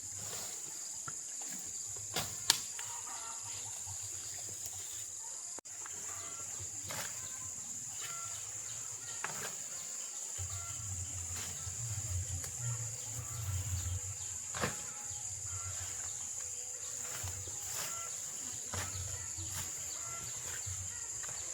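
Steady high-pitched insect drone, with scattered clicks and knocks, the sharpest about two and a half seconds in, and a low rumble that comes and goes.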